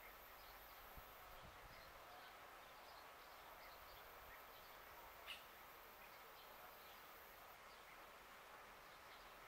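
Near silence: faint rural outdoor ambience with scattered, distant bird chirps and one brief click about five seconds in.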